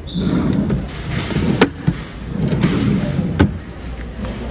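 Dresser drawers sliding in and out on their runners, with two sharp knocks, about a second and a half in and again near the end.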